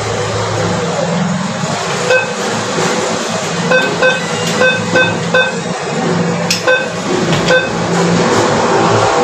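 ATM keypad beeping as its buttons are pressed: a series of short, same-pitched beeps, several in quick succession around the middle, over a steady background hum.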